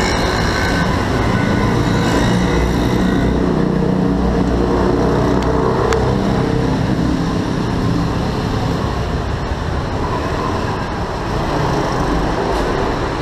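Busy city road traffic: the engines and tyres of cars and buses running close beside the pavement. The traffic is loud and steady, with a pitched engine whine fading out over the first few seconds.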